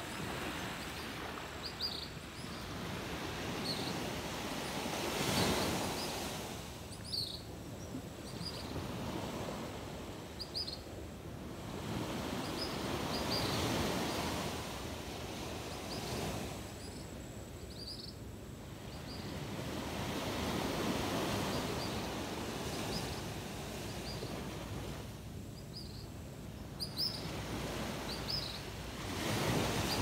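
Sea surf washing onto the beach in slow swells that rise and fall about every eight seconds, with many short, high bird chirps over it.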